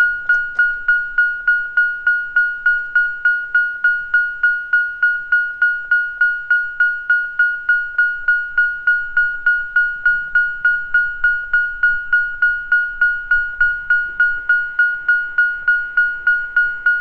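Railway level-crossing bell ringing steadily, one clear single-pitched ding struck over and over at about three to four strikes a second.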